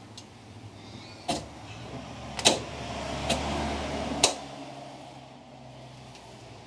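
Four sharp clicks and knocks of a dash switch knob being pushed on and worked into place, with a rubbing, grinding noise between the second and fourth clicks. The loudest click comes about two and a half seconds in.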